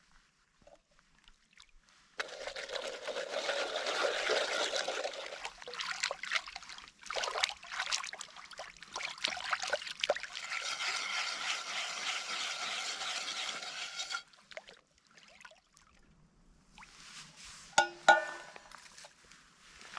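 Water being poured in a steady stream for about twelve seconds, briefly easing off partway through, then stopping; a couple of sharp knocks follow near the end.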